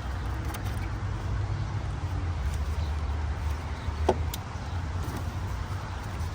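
Car engine idling steadily with a low, even rumble, most likely the BMW 550i's V8. A single sharp click sounds about four seconds in.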